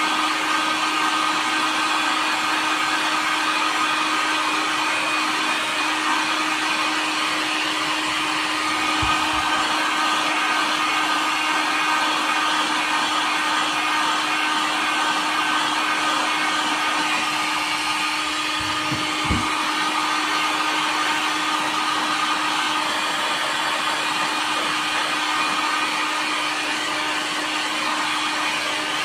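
Handheld heat gun blowing steadily, its motor giving a constant hum, as it heat-shrinks a plastic bottle tight around a lithium-ion battery pack. Two brief low thumps come through, one about a third of the way in and another about two-thirds in.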